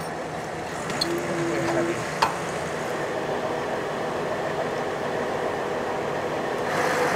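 Engine of the crane lifting the mast running steadily, with a brief whine about a second in and a single sharp metallic clink a little after two seconds.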